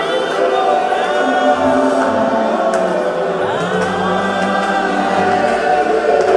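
Choir singing a worship song in long held notes.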